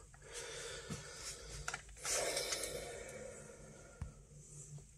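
A person breathing out heavily close to the microphone, a soft noisy rush about two seconds in. A few faint clicks of handling sound around it.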